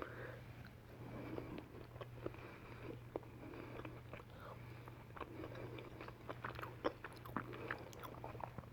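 A person chewing a mouthful of tuna with rice and beans, quietly, with scattered small clicks.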